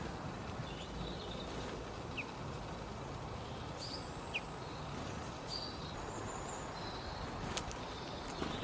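Steady low background rumble with a few faint, short, high chirps and call notes from small songbirds scattered through it, and a couple of faint clicks near the end.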